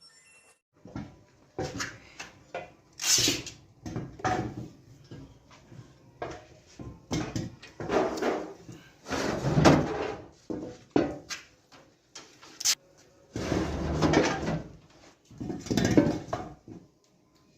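Irregular workshop handling noise of metal parts being worked by hand: sharp knocks and clatter mixed with longer scraping strokes, the loudest near the middle and toward the end.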